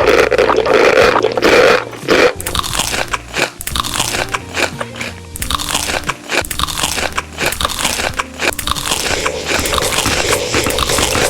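Close-up crunchy biting and chewing of crisp food, a rapid run of sharp crackling crunches, loudest and densest in the first couple of seconds.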